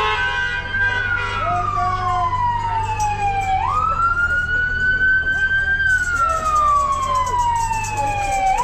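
Emergency-vehicle siren sounding a slow wail. Each cycle rises quickly, then falls away slowly, repeating about every five seconds. A low, steady rumble of idling cars runs underneath.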